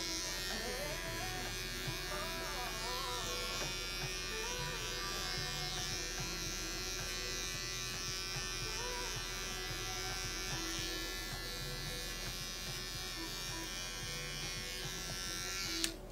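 Small cordless pet clipper buzzing steadily as it shaves a cat's fur, then cutting off suddenly near the end.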